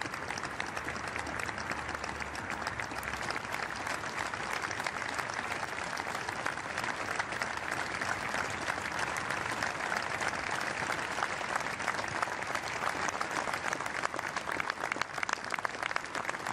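Sustained applause: many hands clapping steadily in tribute, a little louder in the last few seconds.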